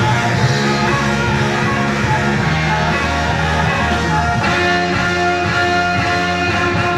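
Loud music with guitar, played over the sound system for a breakdance battle.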